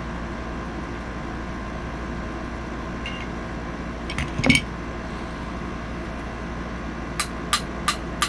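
Small hammer tapping lightly and evenly on a pistol sight being driven into its dovetail, about three taps a second, starting near the end. Earlier there is a brief clatter of small metal parts about halfway through, over a steady hum.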